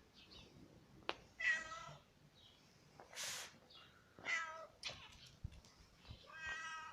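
A pet giving three drawn-out, meow-like calls about two and a half seconds apart, with a short breathy rush between the first and second.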